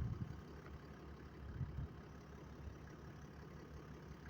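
Vehicle engine idling: a steady, faint low rumble, with a couple of louder low thumps in the first two seconds.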